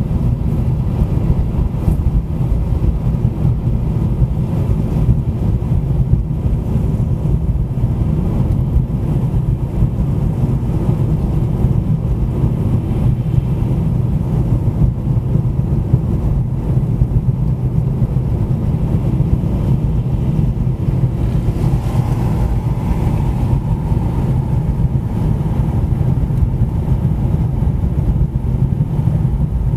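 A car driving on a city street: steady low rumble of engine and tyre road noise. A faint higher hum joins about two-thirds of the way through.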